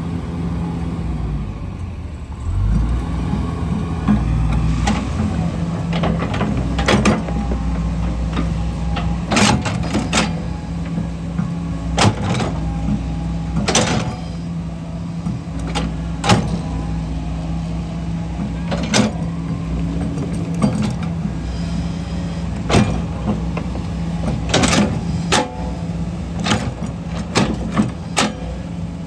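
Heavy diesel machinery running steadily, with repeated sharp clanks and knocks at irregular intervals.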